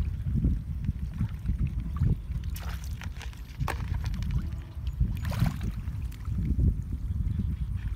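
Shallow muddy water sloshing and splashing as hands grope through it and feet wade, with a few sharper splashes, over a steady low rumble.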